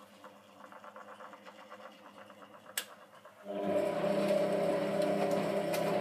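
1991 Hotpoint Electronic 1000 De Luxe washing machine running: a faint rhythmic mechanical sound and a single click. About three and a half seconds in, a loud steady hum starts up.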